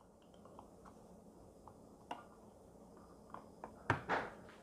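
Light plastic clicks and ticks as disc-bound punch heads are slid along and set side by side in the track of a We R Memory Keepers planner punch board. Faint ticks run throughout, with a sharper click about two seconds in and a few more close together near the end.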